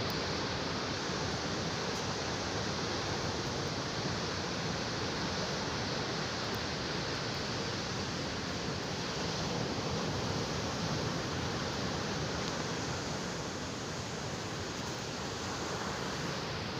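Sea surf and rain together make a steady, unbroken rush, with no single wave or drop standing out.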